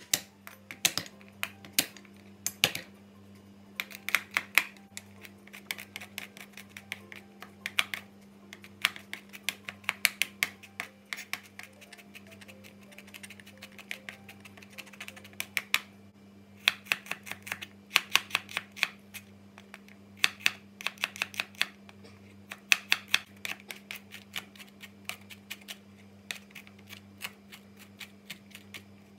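Kitchen knife finely chopping garlic and shallots on a cutting board, in quick runs of rapid taps broken by short pauses.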